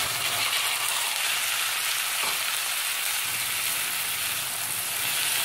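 Chopped mixed vegetables sizzling in hot oil and butter in a frying pan on high flame: a steady hiss.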